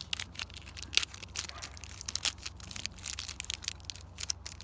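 Crinkling and crackling of a clear plastic blister pack and its card backing as it is handled and the cards are taken out: a run of irregular sharp crackles, the loudest about a second in.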